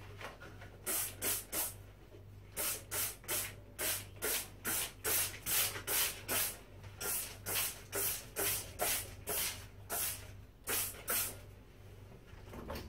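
Trigger spray bottle of cleaner squirted again and again onto shower walls: quick hissing squirts, about three a second, with a short pause near the start, stopping near the end.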